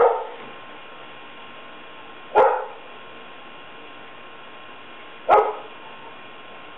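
A dog barking three times, a little under three seconds apart, each bark short and sharp, over a faint steady hum.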